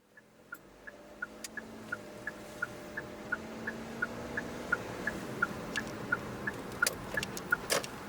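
A two-tone electronic warning beeper sounding about three times a second, alternating between two pitches, over a steady machinery hum; the sound fades in at the start. A few sharp metallic clanks come near the end.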